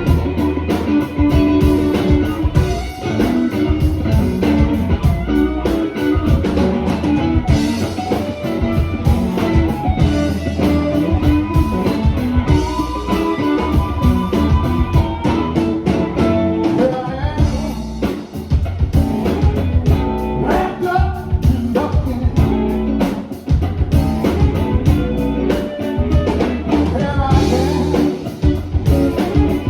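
Blues band playing live: electric guitar over bass and drums, with a singer's voice.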